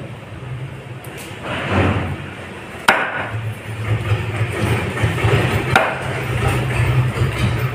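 Cleaver chopping through grey emperor fish on a wooden block: two sharp strikes, about three seconds apart, with a brief scrape of the fish pieces before the first one.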